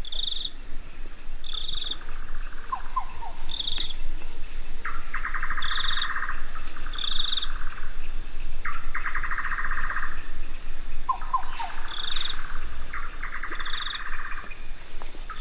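Night chorus of insects and frogs in tropical forest: a steady high cricket trill under repeated short high chirps. Several rattling pulsed calls about a second long come in from about two seconds in, along with a few quick falling notes.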